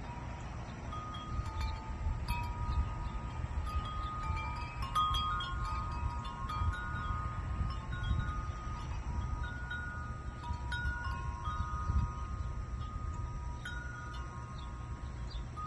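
Wind chimes ringing, their metal tubes struck irregularly by the wind, several clear tones overlapping and sustaining. A steady low rumble sits underneath.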